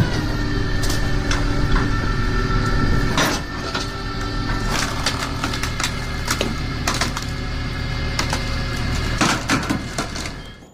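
Industrial log-processing machinery running with a steady low hum, while wood knocks and cracks sharply many times as logs are split and handled.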